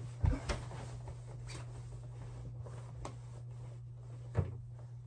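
Bedding being handled while a bed is made: soft rustling of sheets with a few short light knocks, over a steady low hum.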